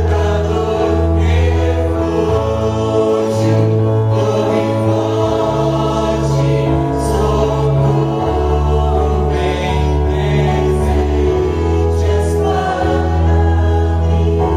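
Group of voices singing a worship hymn together over instrumental accompaniment, with held chords and a bass line that moves every couple of seconds.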